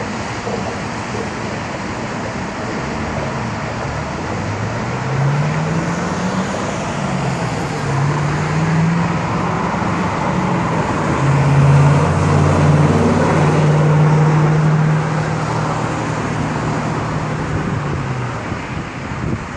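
Chevrolet Camaro ZL1's supercharged 6.2 L V8 accelerating along the road, its note rising in pitch through a couple of gear changes, then holding steady at its loudest about twelve seconds in before fading away. Steady traffic noise runs underneath.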